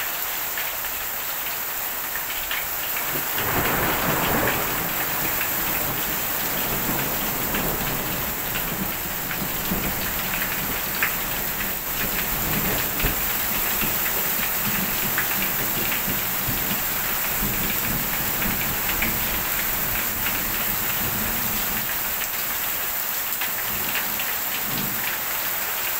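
Heavy hail and rain hitting a porch roof and garden, a dense steady patter full of sharp little impact clicks. A low swell comes in about three and a half seconds in.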